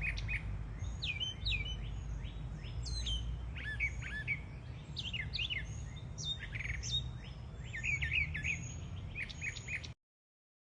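Several backyard songbirds singing and chirping, with many short whistled notes that slide up and down in pitch, over a steady low background rumble. The sound cuts off suddenly near the end.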